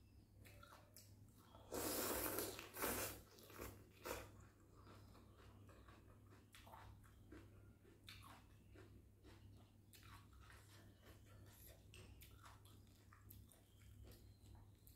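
A person slurping rice noodles from a bowl of noodle soup with a loud slurp about two seconds in, a shorter one right after and another near four seconds, then quiet chewing with small wet mouth clicks.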